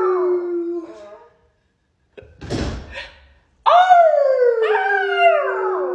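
A Siberian husky puppy and the woman holding it howling together: two long howls that start high and slide down, the first trailing off about a second in and the second starting about three and a half seconds in with a second voice crossing it. A short breathy rush comes between them.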